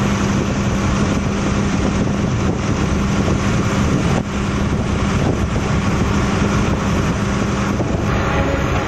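Wooden motorboat's engine running steadily with a low hum, mixed with wind on the microphone and water noise as the boat travels.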